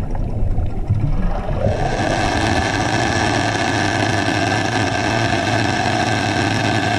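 Steady motor drone heard underwater. It takes over from a rougher, clicking rumble about two seconds in and then holds even.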